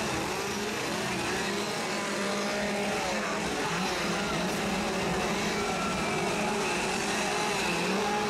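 Several chainsaws running and revving together, a steady engine din with wavering pitch, mixed with the voices of the crowd.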